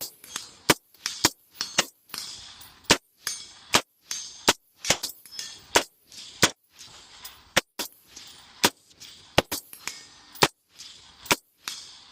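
Rifle fired in quick succession, about two sharp shots a second in a steady unbroken string.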